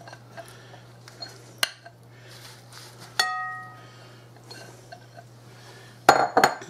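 Kitchen utensil knocking against a salad bowl: a light tick, then a single ringing clink about halfway through that dies away over a second, and a quick clatter of utensils against the bowl near the end.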